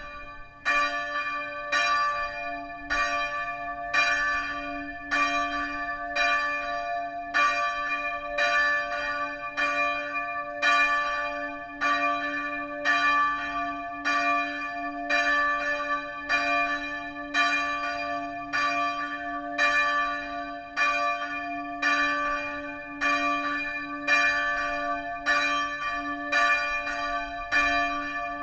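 Church bell of the Catholic Motomachi Church, rung by a timer-driven mechanism, struck in a steady series about once a second. Its low hum rings on continuously between the strokes.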